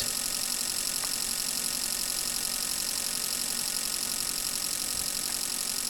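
Steady hiss with faint high-pitched whines and no distinct events: constant background noise from electronic test equipment.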